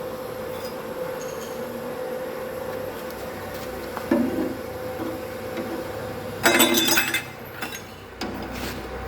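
Metal clinking and clattering, as of tools or steel parts being handled on a bench, over a steady workshop hum. A sharp clink comes about four seconds in, then a louder rattling clatter lasting under a second, and a few light clicks after it.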